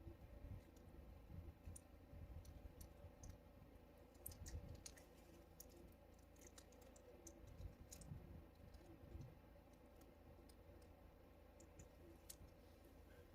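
Near silence with faint, scattered clicks and light rattles of small parts being handled: a new valve stem core being taken out of its kit.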